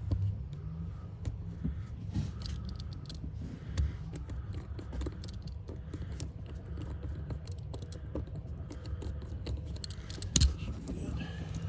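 Scattered small clicks, taps and rattles of hands working on car interior parts and wiring during disassembly, with a louder knock about ten seconds in, over a low steady hum.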